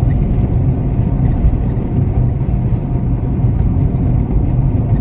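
Steady low rumble of a car on the move, engine and road noise with no break or change.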